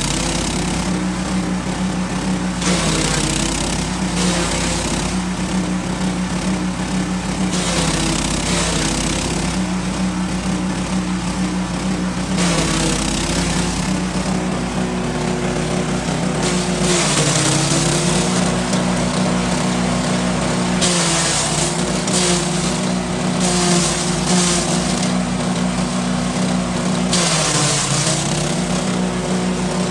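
Grass chopper (chaff cutter) driven by a small 7.5 HP engine, running steadily while odot grass is fed in. The blades chop the stalks in repeated noisy bursts, and the engine's note dips briefly under the load several times.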